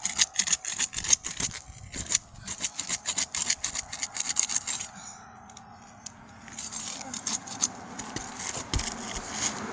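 Rapid, irregular crackling and scraping clicks from asphalt shingles being worked loose and pulled up, pausing for about a second and a half midway.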